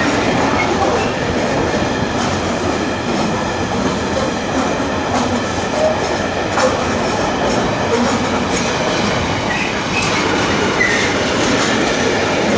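Freightliner freight train's wagons rolling past at close range: a steady rumble of steel wheels on the rails, with scattered clicks.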